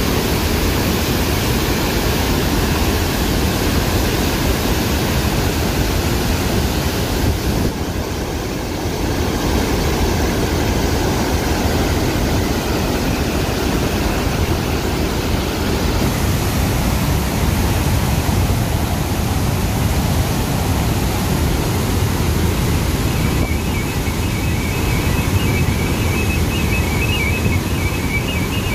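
Flood water pouring through the lifted spillway gates of a dam and crashing down the spillway in a loud, steady rush.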